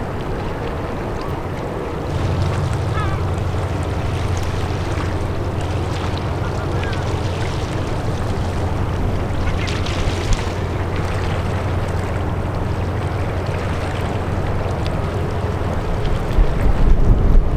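Steady low drone of a passing ship's engines over a constant wash of background noise, with a few short bird calls. Wind gusts buffet the microphone near the end.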